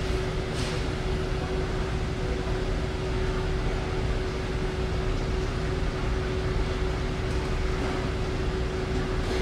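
Steady mechanical hum: an even noise with a constant mid-pitched tone, with one brief click about half a second in.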